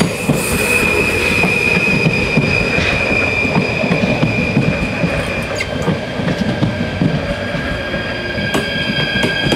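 A passenger train rolls past at close range with a dense rumble, its wheels squealing in steady high tones that shift to a different pitch about halfway through.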